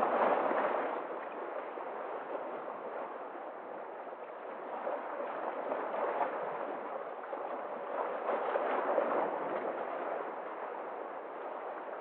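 Sea waves washing in and splashing over algae-covered shoreline rocks, a steady surf wash that surges loudest with a breaking splash right at the start and swells again around six and eight to nine seconds in.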